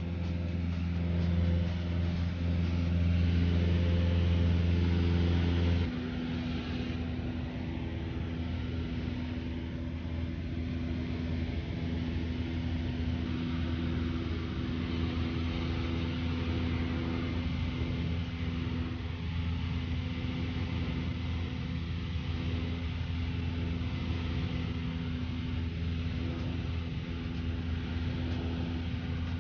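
Steady drone of a light aircraft's engine and propeller heard inside the cabin. About six seconds in, the drone suddenly drops a little in loudness and shifts in pitch, then runs on evenly.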